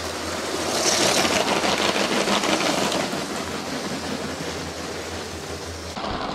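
A motorised LEGO Horizon Express train running past on plastic track: a steady small-motor whir with fast, even clicking from the wheels. It swells about a second in, holds for two seconds, then eases off, and the sound changes abruptly near the end.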